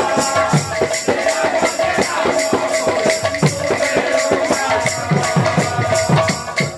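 Folk kirtan music played live: strokes on barrel drums under a fast, even jingling percussion beat and a steady held note. The music drops away near the end.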